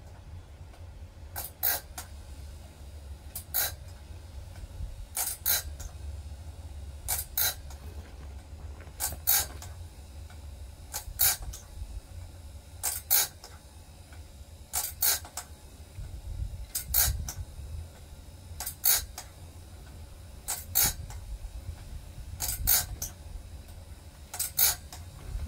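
Wood-Mizer BMS250 bandsaw blade sharpener running: a steady low motor hum with a double click about every two seconds, the machine cycling as it indexes the blade forward one tooth at a time and grinds each tooth.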